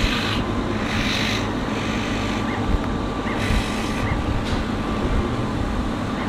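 Steady mechanical drone of a laser cutting machine running, with rubbing and scraping twice as a hand handles the printed sticker sheet.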